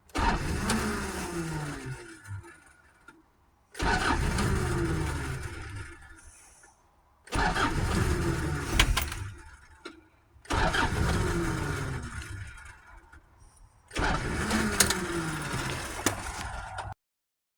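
Toyota Hilux engine being cranked in five separate start attempts, each about three seconds long. Each starts abruptly, then drops in pitch and fades away. The starter's contacts have just been cleaned, and the owner thinks the battery is going flat.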